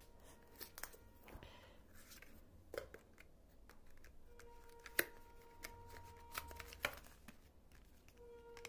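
Hands handling a cardboard smartphone box and its paper insert during unboxing: scattered clicks, taps and light rustles, the sharpest about five seconds in. A faint held tone comes and goes underneath.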